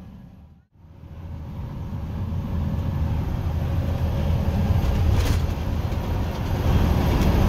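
Semi truck at highway speed, heard from inside the cab: a steady low engine drone with road and tyre noise. It drops out briefly a little under a second in, then comes back and grows louder, with a short click about five seconds in.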